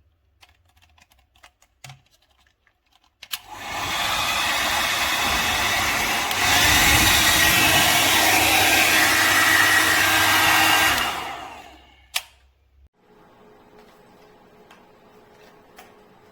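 Hand-held hair dryer switched on, running steadily and then stepping up louder about halfway through, as on a higher setting, before being switched off and winding down, with a sharp click just after. A few small handling clicks come before it starts.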